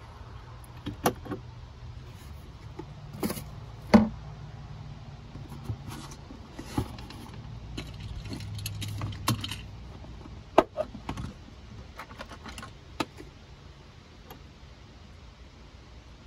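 Scattered small metallic clicks and clinks of a screwdriver and wire terminals as wires are unscrewed from a battery-monitor shunt, the sharpest about four seconds in.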